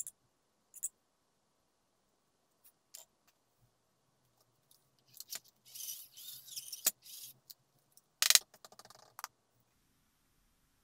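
Small metal and plastic parts and hand tools clinking and rattling as they are handled on a worktable, with scattered clicks, a stretch of scraping and rattling, and one sharp knock a little after eight seconds in.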